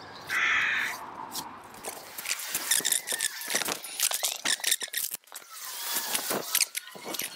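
Degreasing wet wipe rubbed over the grimy copper contact disc of a wiper motor, making irregular scraping rubs with small clicks and faint squeaks.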